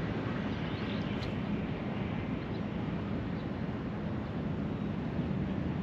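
Steady rush of wind on the microphone, mixed with the wash of the sea.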